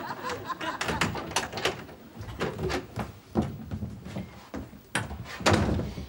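Door sounds: a run of irregular knocks and clatters, with a louder thud near the end as the door is opened.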